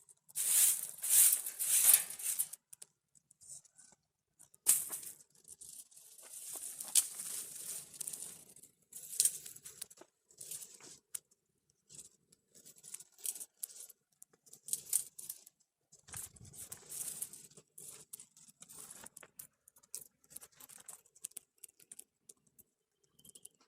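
Dry wood and twigs crackling and rustling in irregular bursts with many sharp snaps, as wood is fed to the fire of a wood-fired bread oven. The loudest burst comes in the first couple of seconds.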